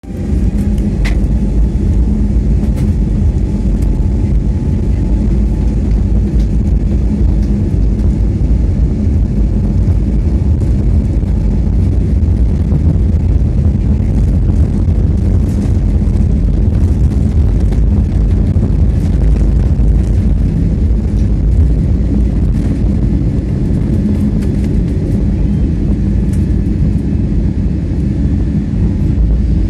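Cabin noise of an Airbus A320 on its takeoff roll: a loud, steady low rumble of the engines at takeoff power and the wheels on the wet runway, with a steady hum under it.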